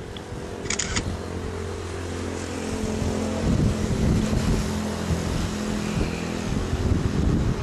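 Wind buffeting the microphone, growing gustier after a few seconds, over a steady low hum, with a short cluster of clicks about a second in.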